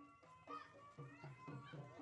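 Quiet music with a regular low beat under a melody.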